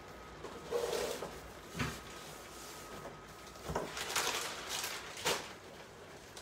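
A few scattered knocks and clatters of household things being handled and set down, with short rustling bursts between them.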